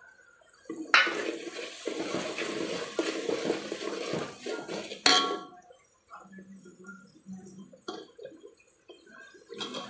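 Metal spoon stirring and scraping curd through fried onions in a hammered aluminium pot, with clinks against the pot's sides, ending in a sharp clank about five seconds in. After that it is quieter, with a few light knocks.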